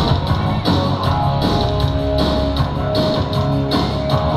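Rock music with guitar and a drum kit keeping a steady beat.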